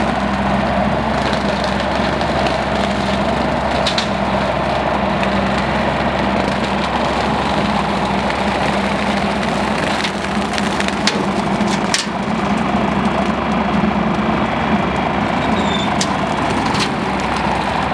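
RK37 compact tractor's diesel engine running steadily under load while its PTO-driven brush hog (rotary cutter) mows through weeds and brush. A few sharp cracks stand out, about four seconds in, several in the middle and a couple near the end.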